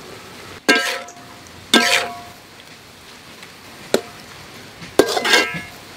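Metal spatula striking and scraping a metal wok while stir-frying sliced meat, about four loud clangs, each leaving the wok ringing briefly; the last is a longer scrape.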